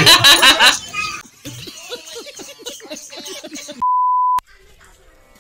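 Voices talking over one another, then, a little before four seconds in, a single steady high bleep of about half a second that cuts off abruptly, a flat edited-in tone like a censor bleep.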